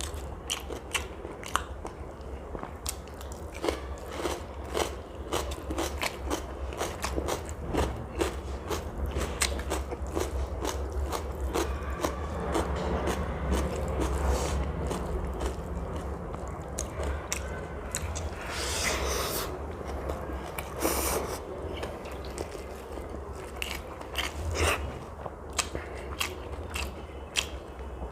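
Close-miked chewing and biting of fried rice and Indo-Chinese dishes, with a stream of small wet mouth clicks over a steady low hum. A couple of louder crunches come about 19 and 21 seconds in.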